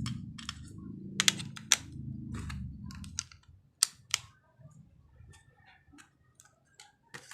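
Sharp plastic clicks and taps of batteries being fitted into a satellite receiver's remote control, several irregular clicks with the loudest a few at a time. A low hum runs underneath and stops about three seconds in.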